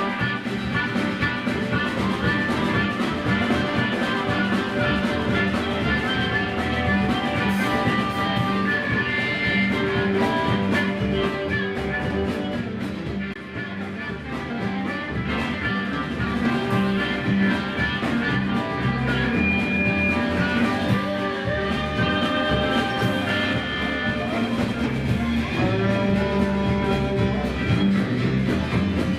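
Band music with guitar, played steadily throughout.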